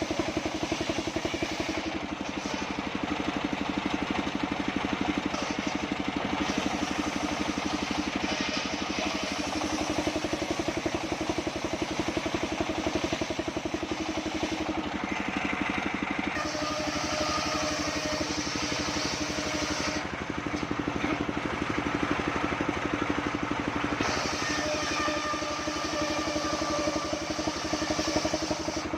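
Engine-driven sawmill running steadily with a rapid engine beat, while the saw cuts through sengon (albasia) logs, a higher cutting hiss swelling in for a few seconds at a time.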